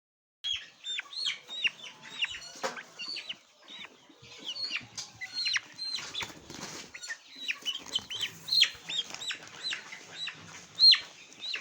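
A flock of six-week-old layer pullets peeping, with many short, high calls overlapping, mixed with the rustle and flapping of the birds moving about. The sound starts abruptly about half a second in.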